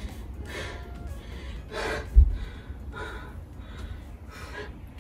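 A woman breathing hard and out of breath after exercise, each breath audible about once a second. There is one dull low thump about two seconds in.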